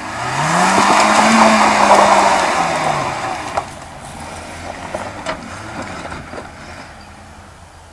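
Suzuki Jimny 4x4 driving past close by on a loose dirt and gravel track. Its engine revs rise about half a second in, hold for a couple of seconds, then drop as it pulls away, with tyre and gravel noise loudest as it passes. A few sharp ticks follow as the sound fades.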